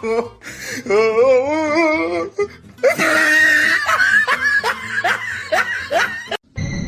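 A person laughing in a run of short bursts, about three a second, over background music; the laughter cuts off abruptly near the end.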